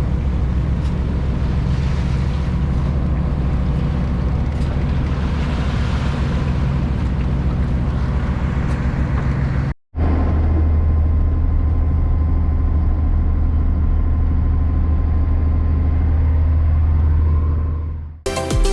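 Motorboat engine running steadily under way, with wind and water noise. After a brief cut about ten seconds in, the engine drone is deeper and duller. Music starts right at the end.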